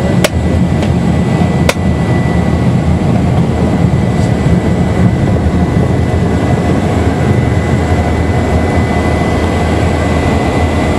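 Single-engine propeller plane's piston engine running steadily while it taxis, heard from inside the cabin. Two sharp clicks come in the first two seconds.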